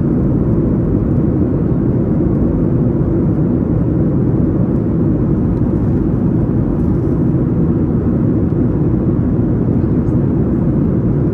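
Airliner cabin noise in flight: a steady, low, even rush of engine and airflow noise.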